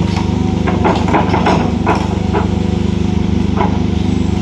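Excavator's diesel engine running steadily, with a handful of short, sharp knocks about one to two seconds in and another near the end.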